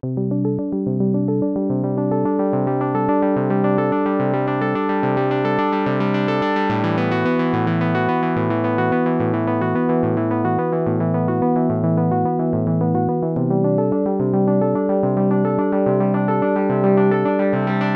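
Roland S-1 synthesizer playing a sequenced polyphonic pattern: a low bass note repeating about twice a second under electric-piano-like chords that change every few seconds. The tone grows brighter toward the middle and again near the end.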